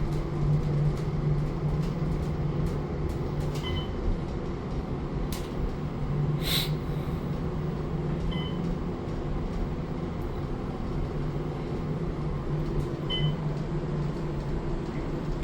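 Elevator car travelling between floors: a steady low hum of the drive and running noise, with three short high beeps spaced about five seconds apart and one brief hiss a little before halfway.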